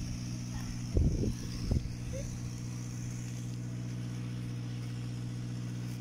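A motor running with a steady low drone. Two short, loud thumps come about a second in.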